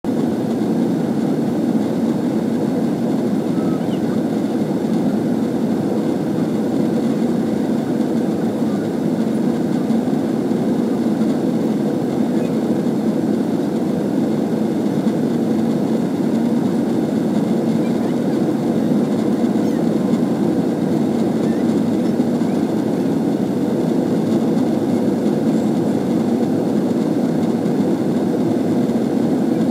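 Airliner cabin noise in flight: jet engines and airflow heard from a window seat as a steady, even low rumble that does not change.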